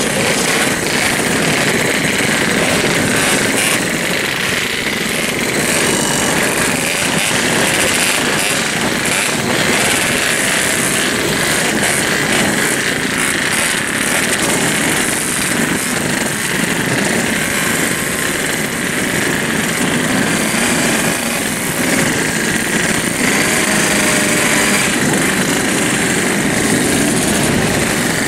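Many Yamaha RX-King two-stroke single-cylinder motorcycles with loud open exhausts running and being revved together in a crowd, a dense, continuous engine din with no pause.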